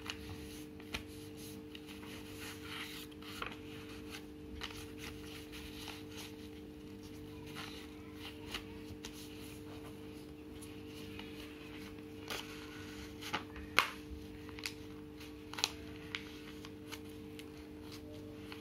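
A sheet of paper being folded into accordion pleats and creased by hand: scattered crinkles, rustles and taps, with one louder crackle about three-quarters of the way through.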